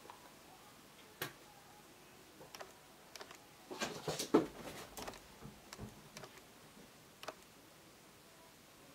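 Faint scattered clicks and light rustling from hands threading rubber-band loom pieces onto a loom hook, with a busy cluster of small taps in the middle.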